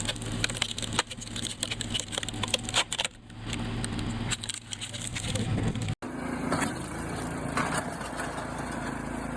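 Engine-driven machinery running steadily, with scattered knocks and clatter. About six seconds in, the sound cuts to a different, steadier engine hum.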